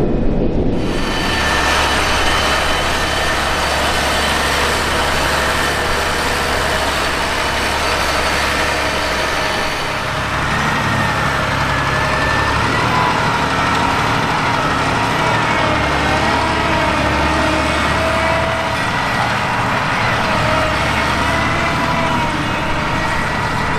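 John Deere 8370RT tracked tractor's diesel engine running steadily under load while pulling a plough, with a whine whose pitch wavers up and down from about ten seconds in.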